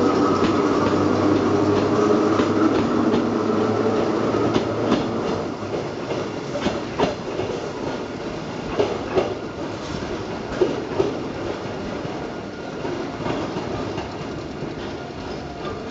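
Hakone Tozan Railway Moha 2 and Moha 1 electric cars pulling away. The motors and wheels run loud and close for the first few seconds, then the wheels clack over rail joints and points a number of times as the train moves off and fades.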